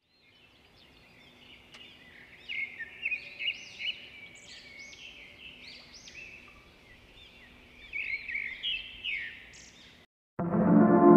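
Caged pet-shop birds chirping: many quick, high chirps and calls overlapping, busiest a few seconds in and again near the end.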